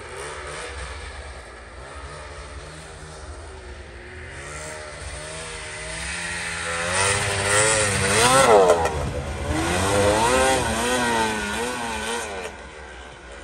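Snowmobile engine running as the sled is ridden across snow, its pitch rising and falling with the throttle. It grows louder as the sled comes closest about halfway through, then fades as it moves away.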